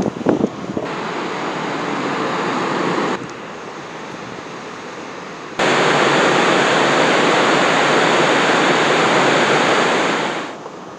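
Rushing water churned up beside a departing ferry, with wind on the microphone: a steady, loud rush that steps up and down in level and is loudest over the second half.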